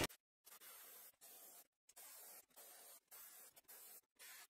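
Near silence: a faint steady hiss of room tone, cut by several brief dead-silent gaps.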